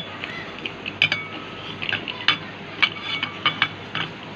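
Metal bearing puller being tightened on a ceiling fan motor's bearing: a series of about seven sharp metallic clinks and ticks at irregular intervals, some ringing briefly.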